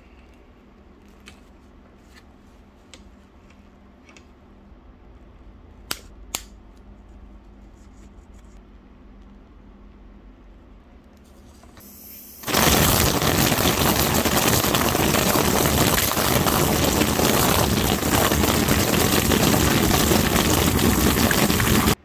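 A few small clicks of handling, then about twelve seconds in a loud, steady rush of compressed air starts as a homemade air whip (a short latex tube on an air line, guided by a golf ball) runs inside a foil flexible duct, the tube flailing against the foil.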